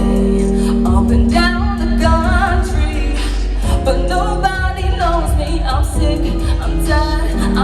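A live band playing with a singer: a wavering sung melody over held bass notes and a regular drum beat.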